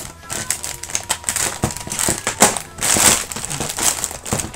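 Clear plastic packaging bag crinkling and rustling in irregular bursts as hands work it open, loudest about two and a half to three seconds in.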